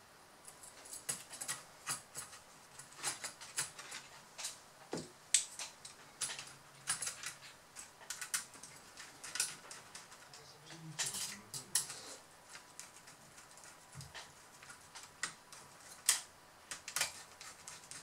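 Irregular small metal clicks and taps as a laptop's copper heat-pipe heatsink is handled, set onto the motherboard and its screws worked with a small screwdriver; two sharper clicks stand out, about five seconds in and near the end.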